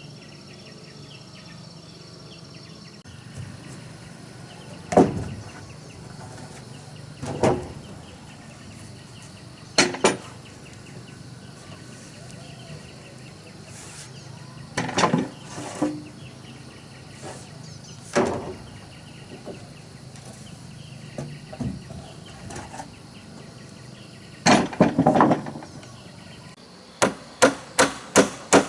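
Hammer blows on timber: single strikes a few seconds apart, a short cluster about 25 seconds in, then a quick run of strikes at about three a second near the end. Insects chirp steadily underneath.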